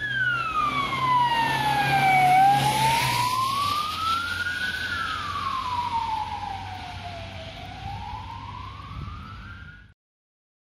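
Ambulance siren wailing, its pitch sliding slowly down and up in long sweeps, over road noise from the passing vehicle. It is loudest about two seconds in, then fades and cuts off suddenly near the end.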